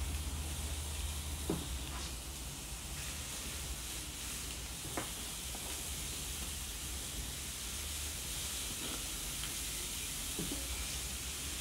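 Raw minced-beef bifteki sizzling on the hot grate of a preheated gas grill as they are laid on one after another, with a few faint taps and a low steady hum underneath.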